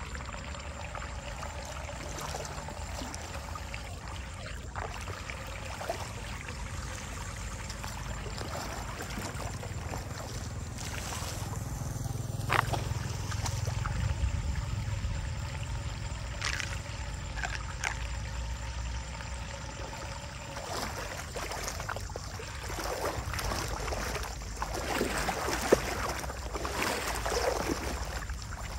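Shallow floodwater running into a street drain through a small whirlpool, with a person's feet wading and splashing through the water, the splashing busier in the second half.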